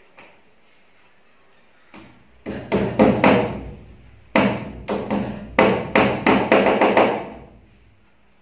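Hammer blows against the wall as electrical wire is fastened along its top: one run of about five quick strikes, a short pause, then a faster run of about ten, each blow ringing briefly.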